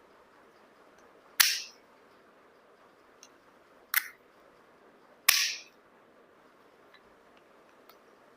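Three sharp snaps, about a second and a half, four and five seconds in, each dying away quickly: the spring-loaded clamp or lock of a car phone holder being worked by hand.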